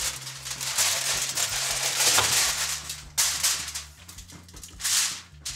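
Aluminium foil crinkling and rustling in irregular bursts as racks of smoked ribs are pushed around on it and a sheet is lifted and folded.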